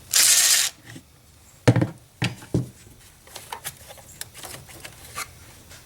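A 10mm wrench or socket loosening the nut on a car battery's positive terminal clamp: a short rushing noise at the start, then a sharp knock and scattered, irregular clicks and taps of the tool.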